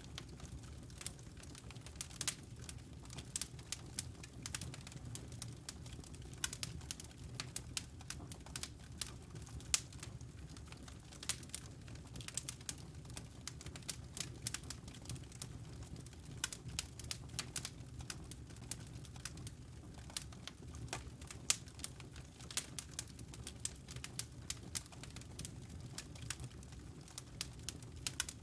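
Wood fire crackling, with frequent irregular pops and snaps over a steady low rumble.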